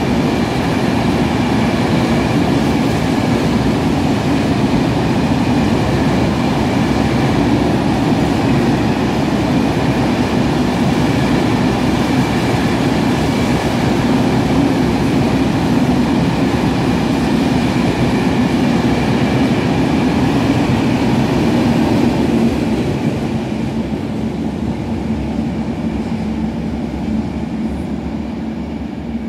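Freight train of flat stake wagons rolling past at speed in an underground station: a steady, loud rumble of wheels on rails with a thin steady tone above it. About 23 seconds in, the last wagons pass and the noise fades away.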